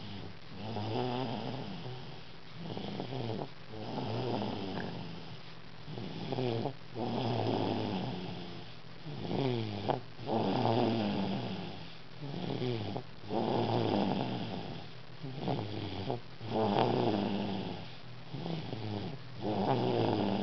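A two-year-old child snoring in her sleep: a snore on each breath, swelling and fading in a slow, steady breathing rhythm.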